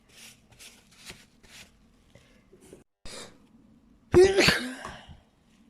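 A person sneezing: a few short breathy sounds, then one loud voiced sneeze about four seconds in.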